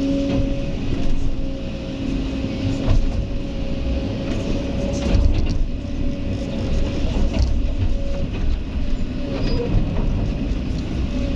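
Kobelco SK excavator running at work, a steady diesel rumble with a whine that drops out and returns, and occasional sharp knocks.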